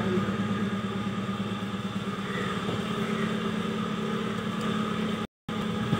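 An engine idling steadily, most likely a moored fishing boat's motor in the harbour, a low even hum with a fast regular beat. The sound cuts out completely for a moment near the end.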